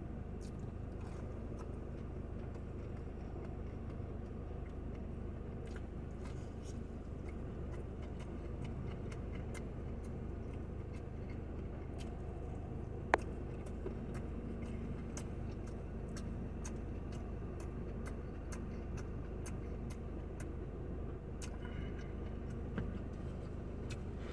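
Faint eating sounds, with scattered small mouth clicks and smacks and one sharper click about 13 seconds in, over a steady low background hum.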